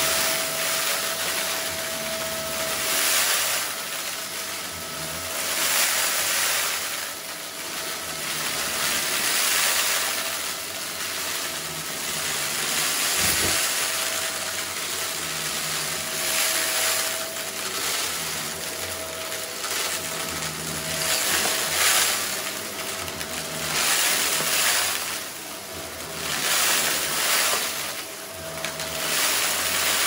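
Shark stick vacuum running on a shag rug and sucking up small rocks: a steady rushing hiss with a constant motor whine, swelling and easing every couple of seconds as the head is pushed back and forth. One sharp click about 13 seconds in.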